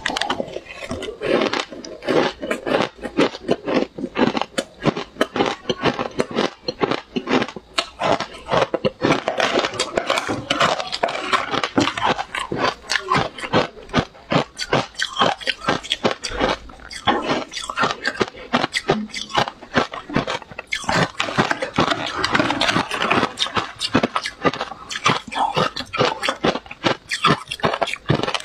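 Crushed matcha ice being chewed, close to a clip-on microphone: rapid, sharp crunching, many crunches a second.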